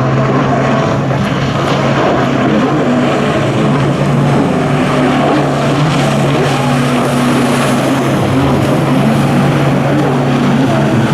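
Jet ski engine running at a steady pitch, with no revving up or down.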